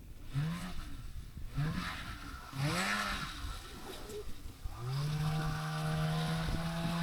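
Snowmobile engine revving in three short bursts, each rising and falling in pitch, then from about five seconds in holding a steady, slowly rising note.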